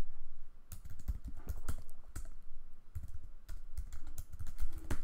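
Typing on a computer keyboard: quick, irregular keystrokes in short runs with brief pauses, as a shell command is typed.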